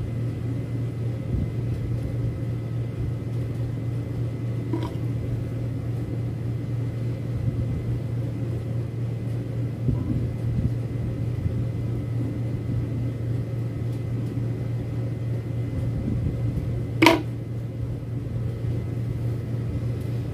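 Steady low machine hum, with a single sharp knock about 17 seconds in and a fainter tap about 5 seconds in.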